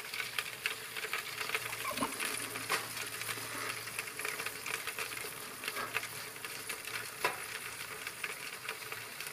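Garlic butter sauce sizzling and crackling around chicken breasts baking in a foil-lined tray in a hot oven, a dense run of small pops over a low steady hum.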